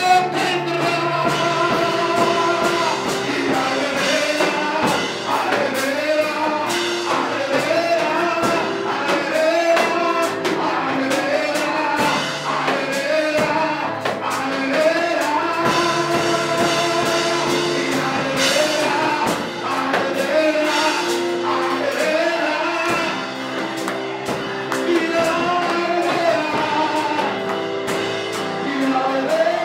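Live worship music: sung praise over instrumental accompaniment with drums.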